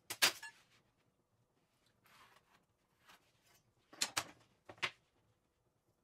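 Steel straightedges and a square being picked up and slid across a plywood sheet, with short scrapes and clatters and a few fainter scratches; the loudest comes about four seconds in.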